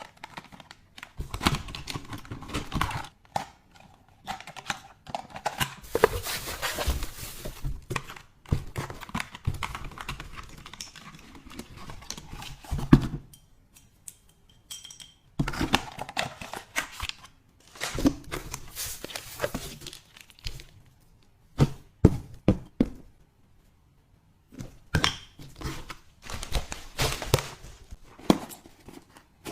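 Hands unpacking and handling household items: packaging crinkling and tearing, with knocks and clicks as things are picked up and set down.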